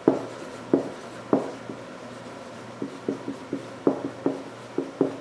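Marker writing on a whiteboard: a dozen or so short taps and strokes at uneven intervals as words are written out.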